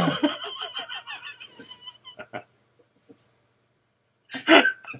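Men laughing: a run of chuckles that fades out over about two seconds, then one short, loud burst of laughter near the end.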